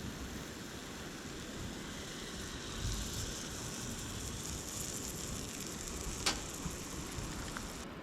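Campfire with a steady hiss and one sharp crack about six seconds in.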